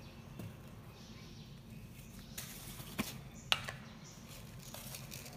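Low steady background hum with a few short, faint clicks: one near the start and two sharper ones about three seconds in.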